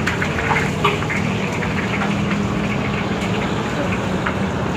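A motor running with a steady low hum, with scattered light metal clinks from a ladle and a wire grill basket.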